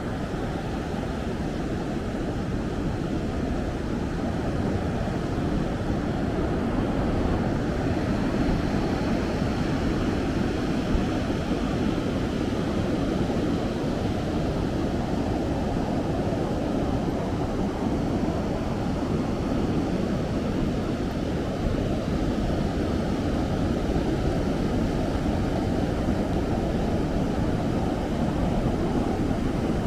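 Ocean surf and wind at the beach: a steady, low rushing noise.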